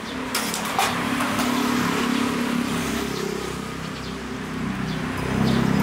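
Low, buzzing engine hum of passing traffic that grows louder near the end, with a few light metal utensil clinks about half a second in.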